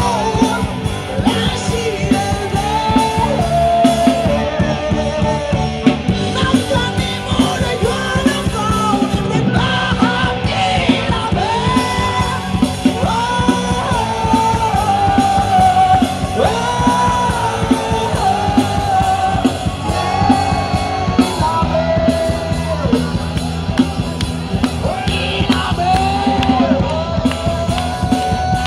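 Live rock band playing loud: a lead singer over electric guitars, keyboard and a drum kit, with a steady driving beat.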